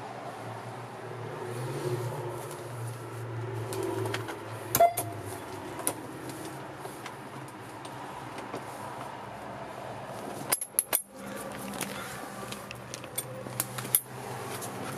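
Clicks and clunks of a 1989 Toyota Hiace cab seat's latch and hinge as the seat is unlatched and tipped up, over a steady low hum. The sharpest click comes about five seconds in, with a quick cluster around eleven seconds and a few more near the end.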